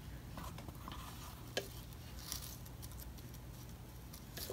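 Faint brushing and dabbing of rubber cement onto leather with the brush fixed in the jar's lid, with a small tick about one and a half seconds in.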